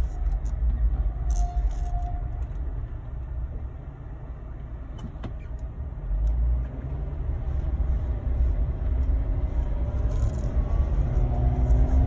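Jeep driving, heard from inside the cab: steady low engine and road rumble, with a short high squeal about a second and a half in and the squeal coming back near the end, growing louder. The squeal is a noise the Jeep began making after an automated car wash.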